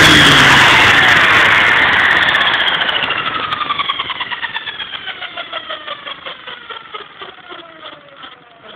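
Shark450 radio-controlled model helicopter's motor and rotor spinning down: a whine that falls steadily in pitch while the blade beats slow and fade away.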